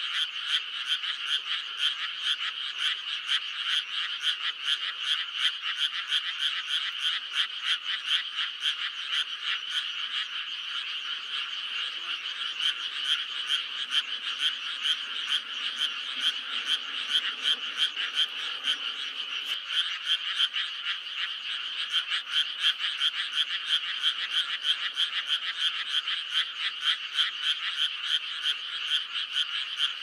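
A large chorus of frogs croaking together, a dense, steady stream of rapid, overlapping high-pitched calls with no pause.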